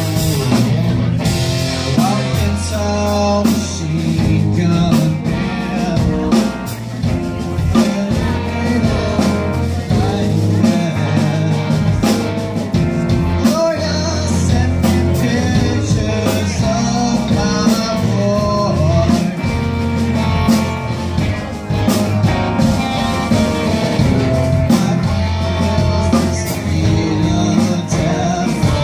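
Live rock band playing, with distorted electric guitars, electric bass and drum kit, and a lead vocal singing over them.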